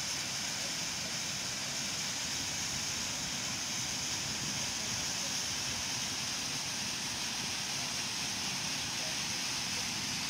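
Steady rush of water pouring over a low stone dam's spillway, a constant hiss that does not change.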